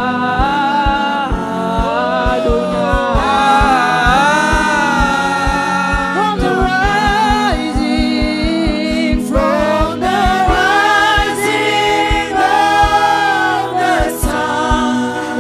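Gospel worship song: voices singing over a steady, sustained keyboard chord and a regular low beat.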